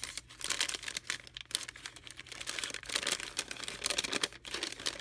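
Brown paper wrapping being unfolded and crumpled by hand: irregular crinkling and rustling.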